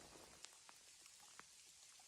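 Near silence: a wood fire crackling faintly, with a few weak, scattered ticks over a low hiss.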